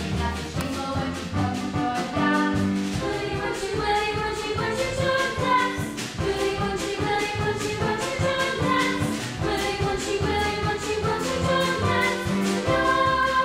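Dance music with a steady beat, accompanying a line of dancers on stage.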